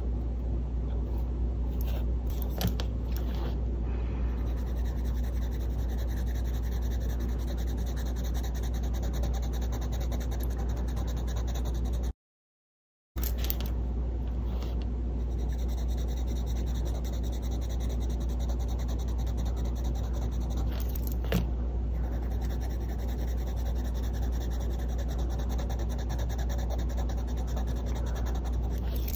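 Caran d'Ache Luminance coloured pencil scratching across paper as colour swatches are shaded in, a steady scratchy drawing sound over a constant low hum. The sound cuts out completely for about a second a little before halfway.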